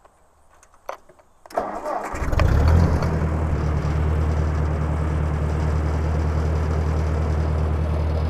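Ford 641 Workmaster's four-cylinder Red Tiger engine being started: the starter cranks briefly about a second and a half in, the engine catches with a short flare of revs, then settles into a steady idle.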